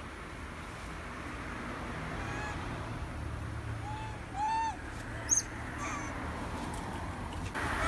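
Formosan rock macaques calling: a few short arched coos, the loudest about halfway through, and a sharp high squeak just after it. A steady low hum of highway traffic runs underneath.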